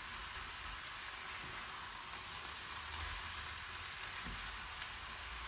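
Leftover rice and vegetables frying in oil in a pan, a steady sizzle, stirred with a spatula.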